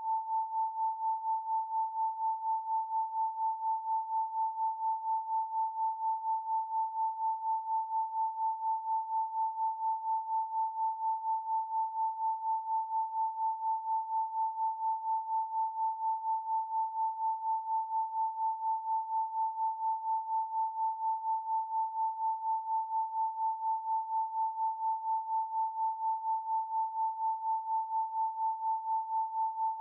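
A pure 888 Hz sine tone held steadily, one plain pitch with no overtones, its loudness pulsing in a quick, even beat.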